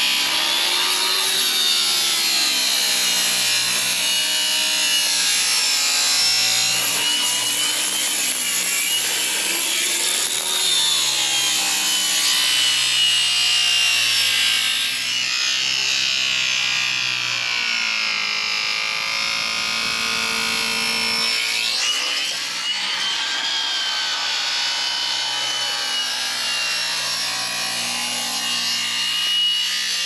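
Angle grinder with a cutting disc running and cutting along a white window sill: a continuous motor whine that rises and falls in pitch as it works.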